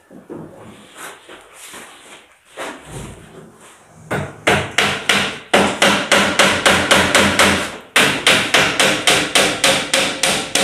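Rapid hammering, about three to four blows a second, starting about four seconds in with a short break near eight seconds; a few fainter knocks come before it.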